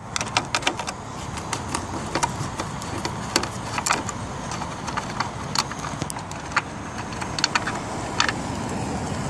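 Phillips screwdriver working out the screws of a car's tail-light assembly: a run of small, irregular metallic clicks and scrapes over steady background noise.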